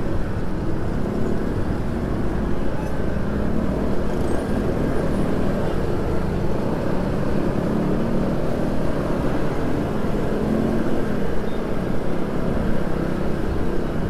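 Steady engine hum and road noise of a moving vehicle in traffic, the engine's pitch wavering slightly.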